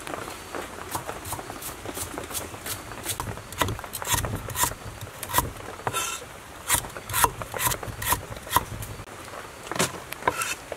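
Knife chopping lemongrass on a wooden cutting board: sharp chops at an irregular pace, a few a second.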